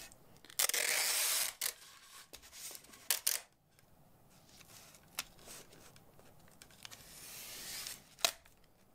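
Clear packing tape pulled off a handheld tape dispenser. There is one fast, loud rip about half a second in, a few sharp clicks and taps, then a slower, quieter peel that swells near the end and stops with a sharp click.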